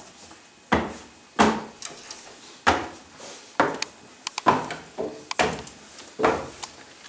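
Footsteps climbing a wooden staircase: a steady series of knocks on the treads, about one or two a second.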